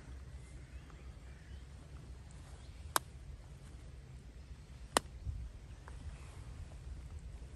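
Two sharp knocks about two seconds apart: a wooden priest striking a landed trout on the head to kill it, over a low steady rumble.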